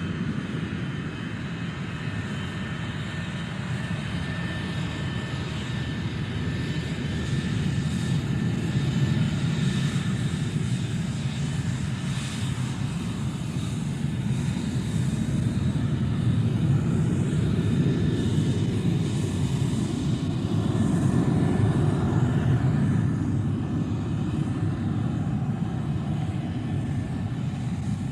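Jet aircraft engines running at an airport as planes taxi: a steady low rumble with a faint high whine, swelling slowly in loudness.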